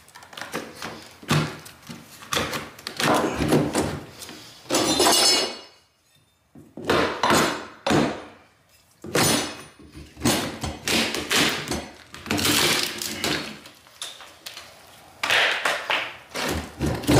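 Hammer blows and cracking, splintering wood as a rotted wooden band joist is knocked loose and broken out of the floor framing. The knocks come in uneven runs, with short pauses about six and eight and a half seconds in.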